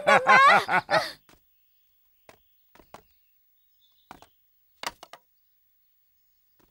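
A voice carries on loudly for about a second and then cuts off, leaving near silence with a few faint scattered taps.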